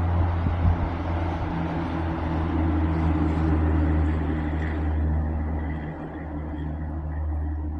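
A motor vehicle's engine: a steady low hum with a noisy rush above it that thins out about five seconds in.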